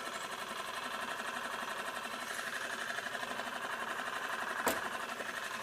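Small outboard motor of a sailing yacht running steadily under way, with an even rapid pulse. One sharp click near the end.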